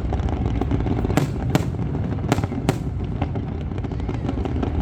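Fireworks going off: a series of sharp bangs at irregular spacing, four loud ones in quick succession between about one and three seconds in among fainter pops, over a continuous low rumble.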